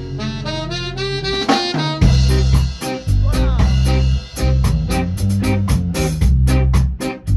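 Ska band playing live in rehearsal: a horn line runs alone for about two seconds, then the full band comes in with bass and drum kit in a steady, choppy rhythm.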